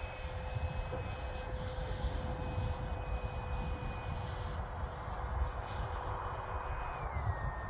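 Electric ducted-fan whine of a Durafly Vampire RC jet in flight. It holds a steady pitch, then drops in pitch near the end as the throttle eases back, with wind rumbling on the microphone.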